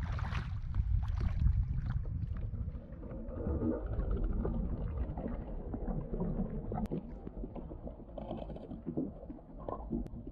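Water splashing and low wind rumble on the microphone as a bass is released over the side of a kayak. About three seconds in, this gives way to muffled underwater sound with light crackling and scattered ticks.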